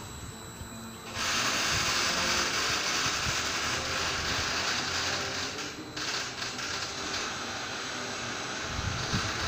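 Ferris wheel machinery running as the wheel turns: a steady mechanical whirr, joined about a second in by a loud, even hiss that dips briefly partway through and then goes on a little quieter.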